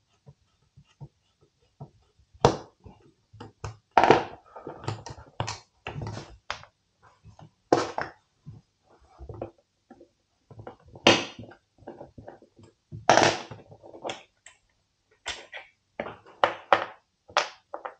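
Irregular clicks, taps and knocks of hand-tool work on a Lee-Enfield No. 4 rifle: a screwdriver undoing the barrel band screws, and the metal bands and rifle handled on a wooden table.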